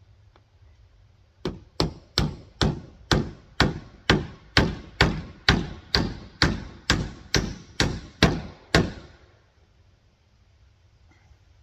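Hand hammer driving a nail, most likely fastening the corrugated PVC roofing sheet to the coop's wooden frame. There are about seventeen steady blows at roughly two a second, starting about a second and a half in and stopping near the end.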